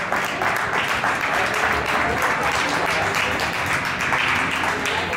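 A small crowd applauding, with voices mixed in among the dense clapping.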